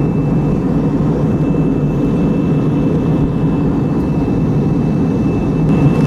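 Steady roar of an airliner cabin in flight, with a faint steady high whine running through it.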